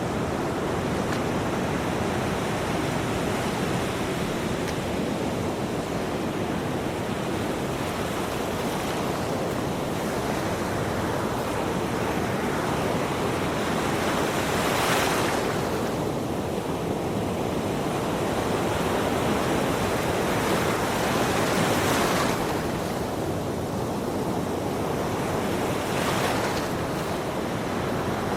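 Ocean waves breaking on a shore, a constant rushing wash with a wave surging louder about halfway through and again twice near the end.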